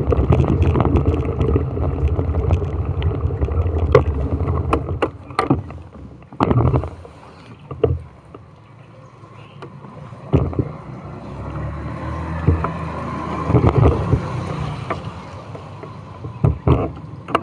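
Vehicle running with road and wind noise while moving. The noise dies down about five seconds in as it slows to a stop. Scattered knocks and handling bumps follow, over a quieter running engine.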